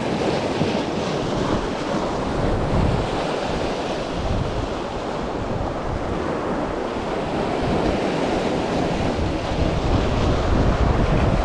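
Sea surf washing and foaming over shoreline rocks, with wind buffeting the microphone; the rumble grows louder near the end.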